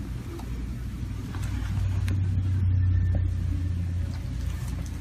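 A low, steady electric motor hum that swells for a couple of seconds in the middle, with a few faint clicks.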